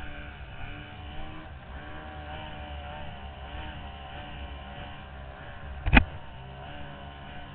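Racing outboard engine of a C-stock runabout running at speed, its pitch wavering a little as the boat runs. A single sharp thump about six seconds in.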